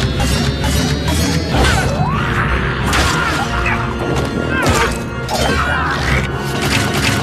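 Loud music with repeated crashes and thuds over it, and a few short sliding squeals.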